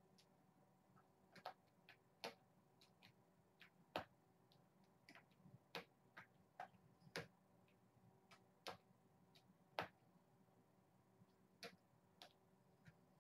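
Irregular sharp clicks and ticks, about twenty spread unevenly, over a faint steady hum in an otherwise quiet room.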